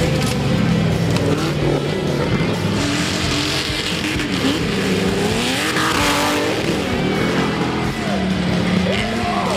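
Engines of modified off-road competition jeeps revving hard, several at once, their pitch rising and falling over and over. A brief rush of hiss comes about six seconds in.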